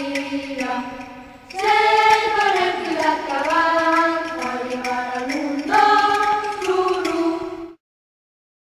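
A choir singing sustained, slowly moving notes in long phrases; the singing cuts off abruptly near the end.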